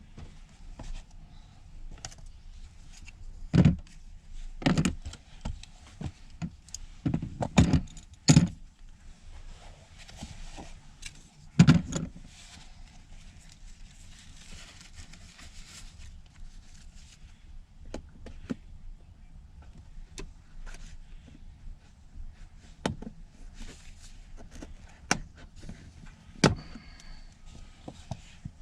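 Scattered knocks, clicks and rattles of plastic car interior trim and its retaining clips being handled and tugged at, with a handful of louder thumps in the first twelve seconds.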